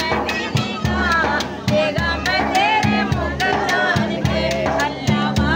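A voice singing a melody over music with a steady, repeating beat.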